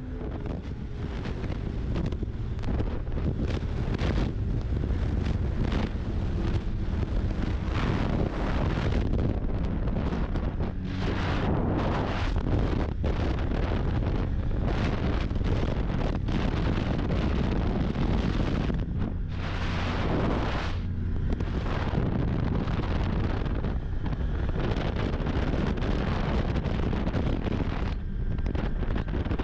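Snowmobile engine running steadily while riding, with heavy wind buffeting the microphone that swells and dips every few seconds.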